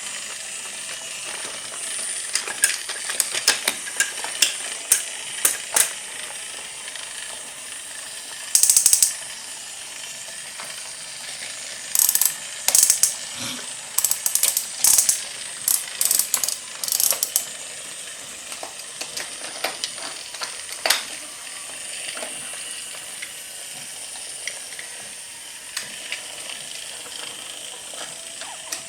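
Small toy motor and gears whirring steadily, with repeated sharp clicks and short clatters of hard toy pieces, busiest in the middle.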